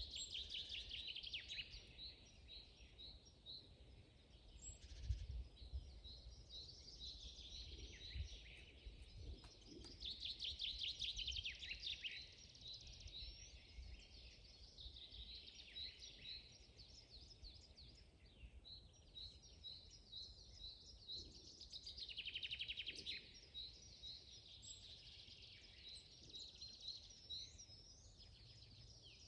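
Several songbirds singing together: strings of short repeated chirps and rapid trills, some louder bursts of trilling, over a faint low rumble.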